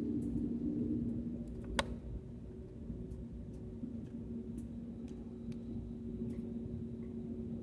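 Steady drone of an airliner cabin in flight: a low rumble with a constant hum. A single sharp click about two seconds in, and faint scattered ticks.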